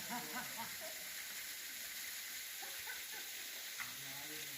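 Steady rushing hiss of a waterfall's falling water, with faint distant voices near the start and near the end.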